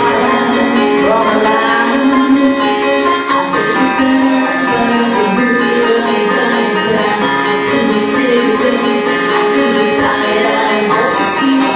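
Women's voices singing together in close harmony, with sustained, gliding notes, over a keyboard accompaniment.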